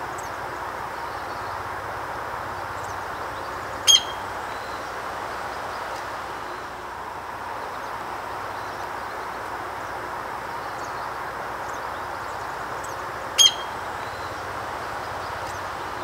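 Steady marsh background hiss with two short, sharp bird calls, the first about four seconds in and the second about nine and a half seconds later.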